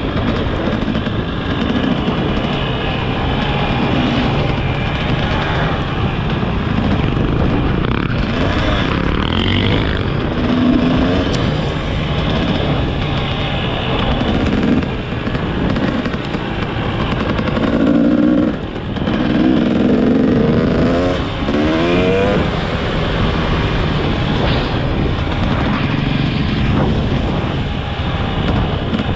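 Motorcycle engine running steadily while riding, under a dense, even noise that holds throughout.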